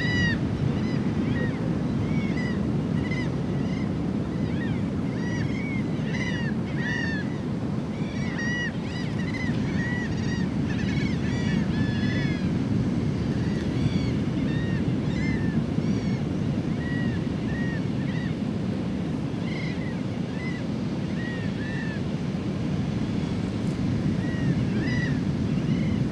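Steady low wind rumble over open water, with many short arched bird calls repeating irregularly, about one or two a second, thinning out in the second half.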